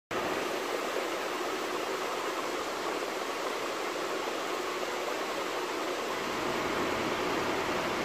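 Steady, even hiss of aquarium aeration and water flow.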